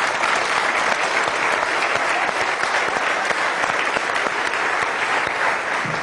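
Studio audience applauding steadily, with the men on stage clapping along.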